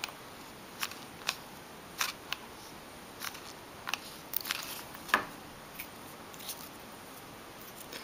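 Scattered light clicks and taps, about a dozen at irregular intervals with the sharpest about five seconds in: hands handling a small painted pine cone and setting it against a modelled reindeer figure.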